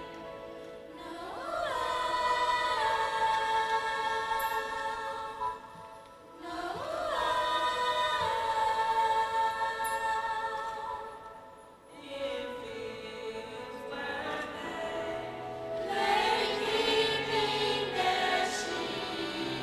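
High school concert choir singing sustained chords. Two phrases swell up and hold, around 1.5 s and 6.5 s in, then a short break near 12 s before the singing resumes and grows fuller.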